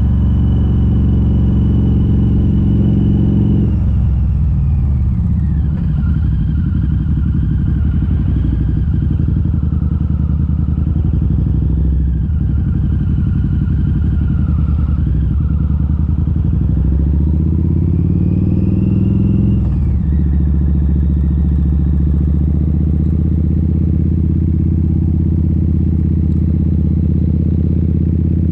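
Harley-Davidson V-Rod Muscle's V-twin engine running through Vance & Hines Competition Series slip-on exhausts with the catalytic converters removed, heard while riding. Engine speed drops about four seconds in and wanders, then rises in a long pull and falls sharply at about twenty seconds, as at an upshift, before settling into steady running.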